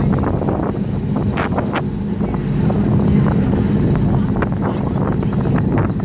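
Jet boat engine running steadily, with wind buffeting the microphone and a few short crackles.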